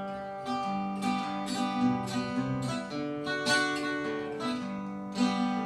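Acoustic guitar strummed in a steady country rhythm, about two strums a second, in an instrumental passage with no singing.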